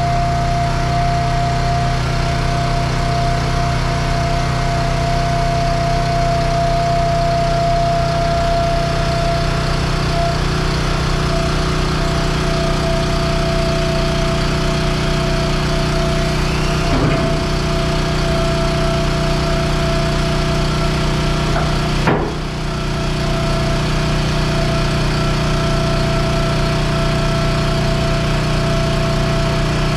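Heavy diesel equipment engine running steadily with a constant whine over it, as an excavator is loaded onto a lowboy trailer. A metal clank comes a bit past halfway and a sharper knock a few seconds later.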